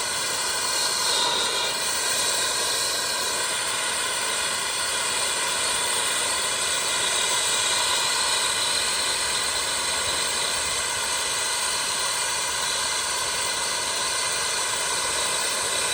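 Acetylene torch flame from a small MC tank burning steadily with an even hiss, heating water toward the relief valve's blow-off.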